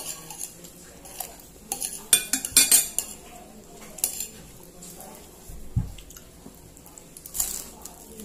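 Tableware clinking and scraping while people eat: dishes and utensils knocking against each other in scattered sharp clinks, with the densest and loudest run about two to three seconds in and another near the end, and one dull thump about halfway through.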